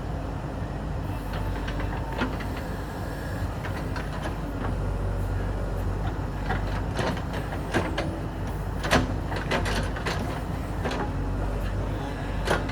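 JCB 3DX backhoe loader's diesel engine running steadily, with a string of sharp clanks and knocks over it. The knocks come thickest in the middle, and the loudest falls about nine seconds in.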